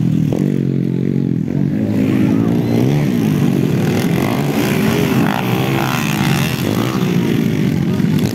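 Several underbone motorcycles racing on a dirt motocross track, their engines revving up and down as the riders work the throttles.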